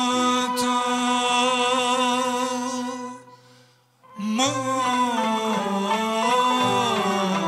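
Male singer holding one long note with vibrato, breaking off about three seconds in, then coming back a second later with a winding, ornamented phrase: a Turkish classical şarkı in makam muhayyerkürdi.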